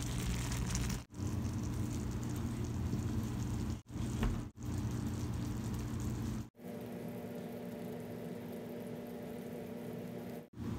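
Food sizzling and bubbling in a pan on the stove, with a steady low hum underneath. The sound breaks off sharply and resumes several times, as short clips are cut together.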